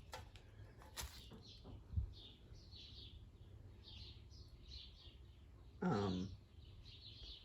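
Faint birds chirping in the background, short high chirps repeating two or three times a second, with a light click about a second in, a low knock at two seconds and a brief murmured voice sound near six seconds.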